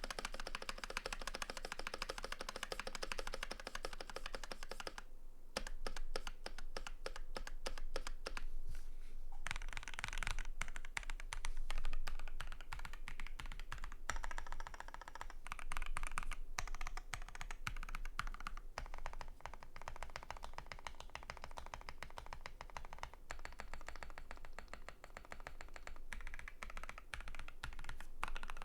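Rapid, continuous typing on a Keychron Q1 mechanical keyboard with lubed Vertex V1 switches, a steel plate and PBT keycaps, with brief pauses, one just after about five seconds.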